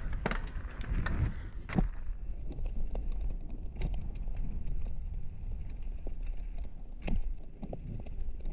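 Mountain bike riding down a dirt and gravel trail, heard from a helmet-mounted camera: a steady low rumble of wind and tyres on the trail, with scattered knocks and rattles, a cluster of them in the first two seconds and a sharp one about seven seconds in.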